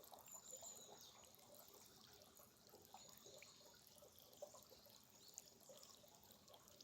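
Faint trickling and dripping of a small mountain stream, with faint thin high whistles above it.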